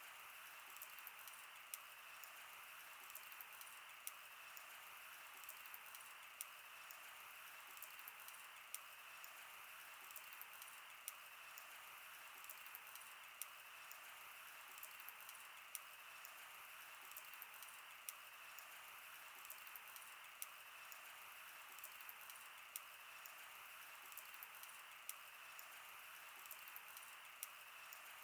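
Wood fire crackling: frequent sharp, irregular pops and snaps over a soft, steady hiss.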